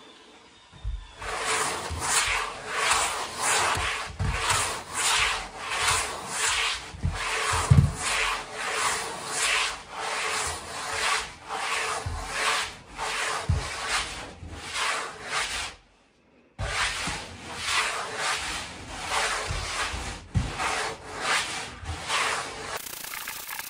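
Long hand sanding board rubbed back and forth over a styrofoam car body buck, giving a steady rhythm of rasping strokes that stops briefly about two-thirds of the way through.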